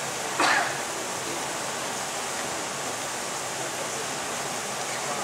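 Steady rushing hiss of an indoor swimming-pool hall, with a brief louder sound about half a second in.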